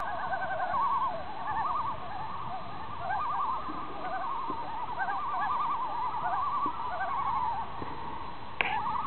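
Several common loons calling at once, overlapping wavering tremolo calls whose pitch wobbles rapidly up and down. There is one sharp knock near the end.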